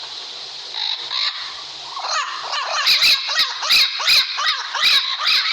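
Pet parrot calling: a fast series of short, rising-and-falling squawks, about three a second, beginning about two seconds in after a couple of brief calls.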